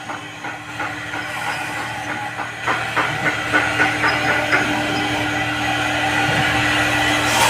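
CNC router spindle running and cutting PVC board: a steady hum and hiss, with a quick run of regular ticks, about five a second, around the middle. The sound grows louder toward the end.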